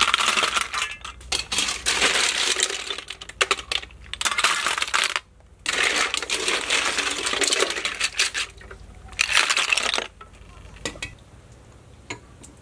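Boiled snails in their shells poured from a metal strainer onto a metal tray, the shells clattering against the tray and each other in three runs of dense clicking, the last ending about ten seconds in. A few single light clicks follow.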